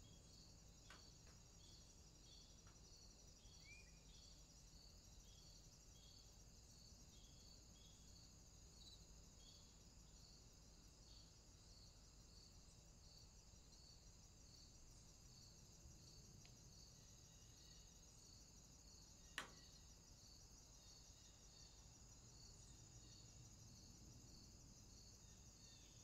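Faint steady insect noise, crickets or cicadas trilling with an evenly repeating chirp, over a low background hum. One sharp click about two-thirds of the way through.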